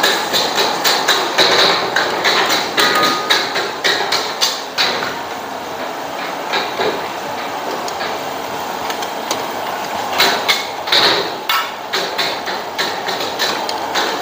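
Quick runs of dry knocks from kitchen utensils striking a hard surface, about two to three a second, over a steady background hiss. The knocks thin out in the middle and pick up again later on.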